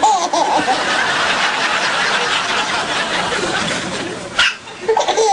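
Soft laughter and chuckling. About four and a half seconds in comes one sharp, short hiccup from an 8-month-old baby.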